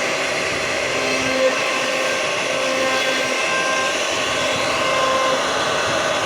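CNC router spindle running and cutting wood: a steady whine and rush with faint tones that come and go as the cut changes.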